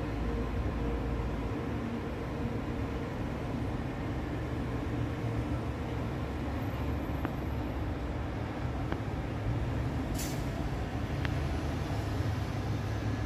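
Steady city traffic rumble, with a low hum under it and a short hiss about ten seconds in.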